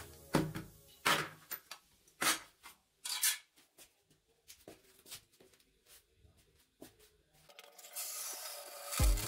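Plastic radio knobs and clear plastic dial strips knocking and clattering as they are set down in a plastic basin: a few sharp knocks, then lighter clicks. From about seven and a half seconds in, a hose sprays water into the basin with a steady hiss.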